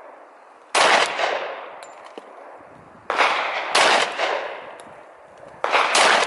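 Glock 20 pistol firing 10mm Auto rounds: three single shots roughly two and a half seconds apart, each trailing off in a long echo.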